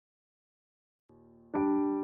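Silence for about the first second, then background piano music begins: a faint held note, then a chord struck about halfway through that rings on.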